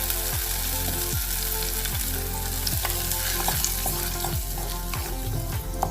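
Mustard seeds and curry leaves sizzling in hot coconut oil for a tempering (tadka), a steady hiss with a few sharp pops.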